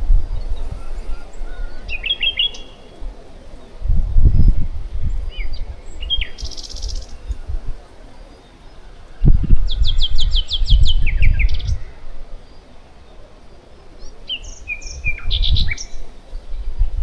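Songbirds singing in short phrases: scattered chirps and a fast trill of falling notes about ten seconds in. Three spells of low rumble, about four seconds in, around ten seconds and near fifteen seconds, are louder than the birds.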